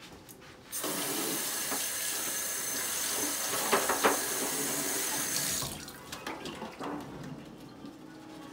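Kitchen faucet running into a stainless-steel sink while a plastic container is rinsed under the stream, turned on about a second in and off a little before six seconds. Two light knocks come near the middle, then a few quiet clicks.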